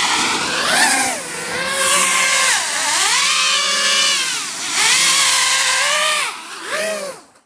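Motors and propellers of a Martian II FPV racing quadcopter whining overhead, the pitch swinging up and down several times as the throttle is punched and eased.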